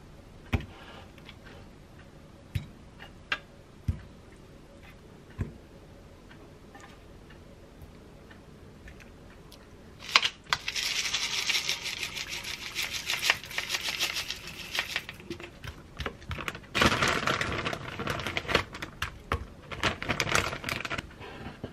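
Food-prep handling sounds: a few light, separate knocks of fruit pieces and a wooden spoon against a wooden bowl, then about ten seconds in a long, dense crackling rattle of granola and plastic packaging, which comes again a little later as dried sweet-potato strips are handled.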